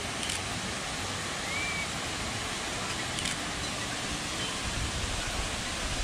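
Steady, even rush of a waterfall pouring over rocks.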